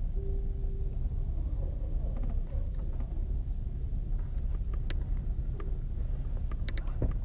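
Low steady rumble of a cinema auditorium, with a brief hum in the first second and scattered small clicks and rustles from the audience.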